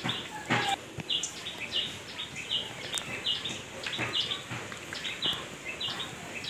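A bird chirping a short, high note over and over, about two a second, with a couple of soft knocks in the first second.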